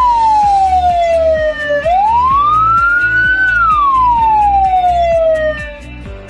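Ambulance siren in its slowest wail: one tone rising over about a second and a half and falling over about two seconds, twice, fading out near the end. This slow pattern signals that the ambulance or hearse is carrying a body.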